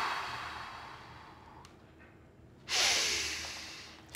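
A man breathing slowly and deeply in meditation: two long breaths, the second about two and a half seconds after the first, each loud at the start and trailing off over about a second and a half.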